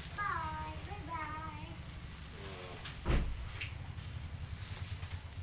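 Short pitched, sliding vocal calls, then a single sharp thump about three seconds in, over a steady low hum.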